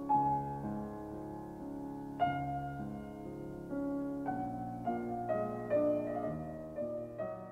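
Slow, soft solo piano music: single notes and chords struck a second or two apart and left to ring and fade.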